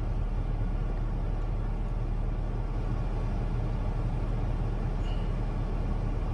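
Jaguar XF's engine idling: a steady low rumble heard from inside the cabin.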